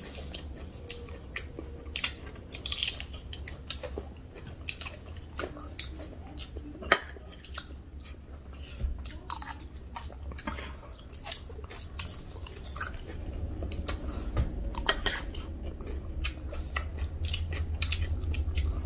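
People chewing and crunching crisp snack food, spicy chatpate and fried onion pakoda, close to the microphone: many short, crisp crunches at an irregular pace. A steady low hum lies underneath.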